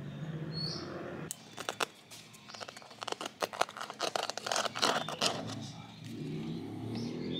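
Plastic lid of a self-heating rice pot being pried loose and lifted off: a quick run of sharp clicks, snaps and scraping over a few seconds. A low wavering tone follows near the end.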